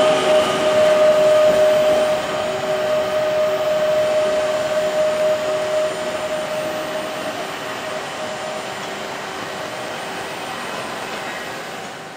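A PESA EN99 electric multiple unit pulling away: the steady two-tone whine of its electric traction drive fades out after about six seconds, leaving a dwindling rumble of the train. The sound fades out at the end.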